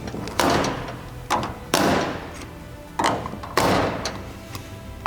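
Clear plastic storage jars knocking and clicking as they are twisted and locked onto wall-mounted baseplates: about five sharp knocks, each ringing briefly.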